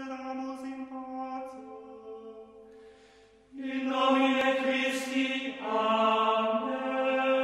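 Slow chanted singing in long held notes, softer and fading over the first few seconds, then coming back louder about three and a half seconds in, with a change of note near the end.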